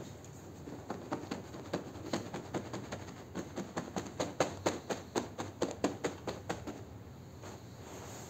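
A long-handled scrub brush working a soapy, foam-soaked rug in quick back-and-forth strokes, each stroke a short wet scrape, several a second. The strokes thin out for about a second near the end.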